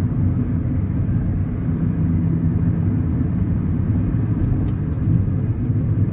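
A 2001 Mitsubishi Mirage's 1.5-litre 4G15 four-cylinder engine running steadily under way, heard from inside the cabin with road noise. The engine is one the owner says lacks power and will not pull, and he suspects clogged catalytic converters.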